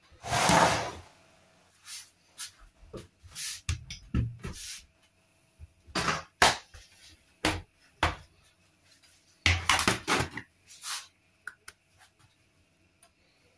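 Irregular kitchen handling noises: clatter, sharp knocks and rustling as containers and utensils are moved about and set down on a wooden countertop. A longer rustling clatter comes right at the start, a run of sharp knocks in the middle, and another dense clatter about two-thirds of the way through.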